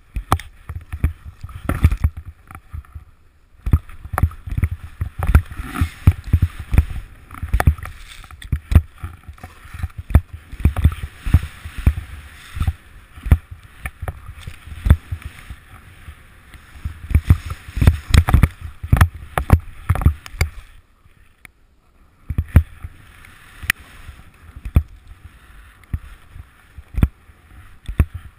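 Snowboard riding through deep powder: the board hisses through the snow, with frequent sharp thumps throughout and a short quieter lull about three-quarters of the way through.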